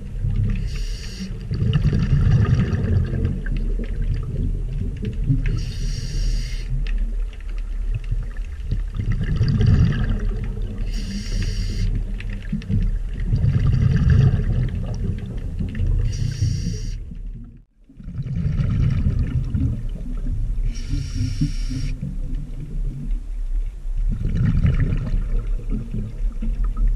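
Scuba diver breathing through a regulator underwater: a hissing inhale about every five seconds, each followed by a longer low rush of exhaled bubbles. The sound cuts out briefly about two-thirds of the way through.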